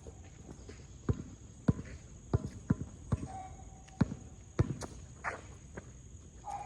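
Basketball being dribbled on a hard court, a run of sharp bounces roughly every half second, unevenly spaced. A steady high buzz of insects runs underneath.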